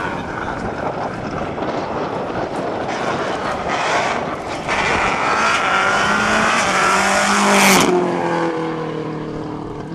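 Subaru Impreza rally car's turbocharged flat-four engine at full throttle, its pitch climbing as it approaches, passing close about three-quarters of the way through, then dropping in pitch as it goes away.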